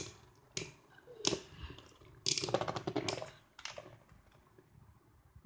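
Two metal Leone Beyblades clashing as they spin in a cardboard stadium: a run of sharp clacks, with a quick flurry of hits about two to three seconds in. The clashing stops near the end.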